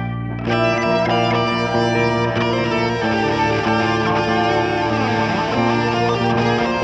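Progressive rock music led by guitars, with the full band coming in about half a second in.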